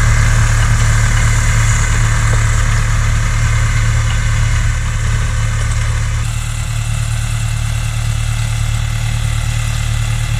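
New Holland tractor's diesel engine running at a steady speed while it works a boom sprayer, a steady low hum. The sound shifts slightly about six seconds in.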